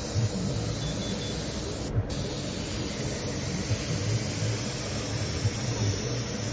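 Steady rushing hiss of air over a low, wavering hum, from shop equipment running in an airbrush studio; the hiss briefly drops out about two seconds in.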